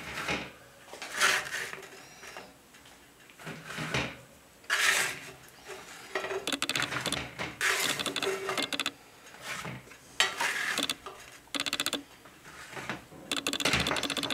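A spatula scraping across a cast-iron pan and scones being set down on a wire cooling rack: a series of short scrapes and light clatters.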